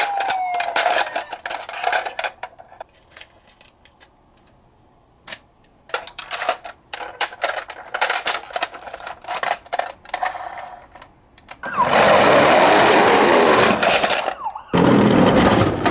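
Toy minicars clicking and rattling, with a toy siren's gliding tone dying away about a second in. Near the end come two loud rushing noises, one of about two and a half seconds and a shorter one right after it.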